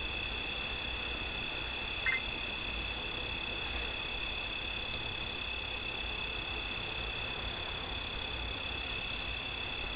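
Steady night-time chorus of calling frogs and insects: two constant high-pitched trills that never break, over a low background rumble, with one brief chirp about two seconds in.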